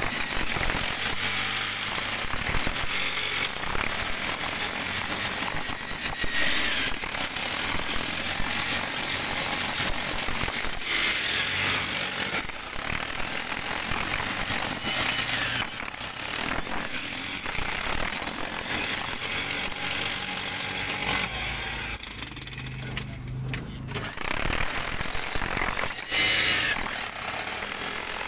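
Electric jackhammer chiselling into rock at the bottom of a trench, hammering steadily with one short pause about three quarters of the way through.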